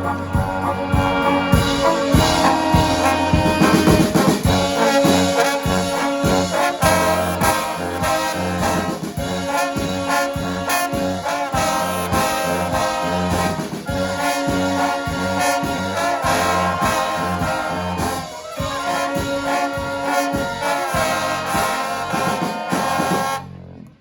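Brass band playing a tune with horns over a steady beat, ending on a sudden cutoff near the end.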